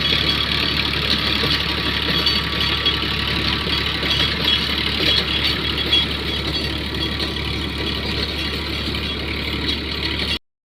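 Massey Ferguson tractor engine running steadily with its rotavator working. The sound cuts off abruptly just before the end.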